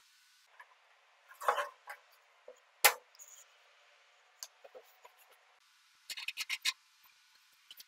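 Metal tool-chest hardware being handled and fitted: a brief scrape, a sharp metallic click about three seconds in, and near the end a quick run of rattling clicks as a long metal bar is slid down into the side of the chest.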